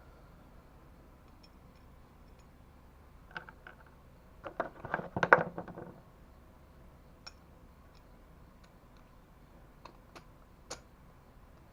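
Small metal parts clinking and rattling as they are handled: a busy run of clicks from about three to six seconds in, then a few single sharp ticks spaced out near the end.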